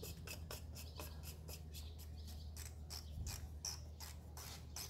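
Oil filter housing cap on a VW GTI Mk7 engine being screwed down by hand: a run of light, irregular clicks and scratches from the cap turning on its threads, over a steady low hum.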